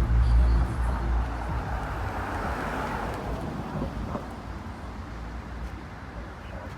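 Street traffic noise: a low vehicle rumble, loudest in the first second, then a steady, slowly fading hum of passing road traffic.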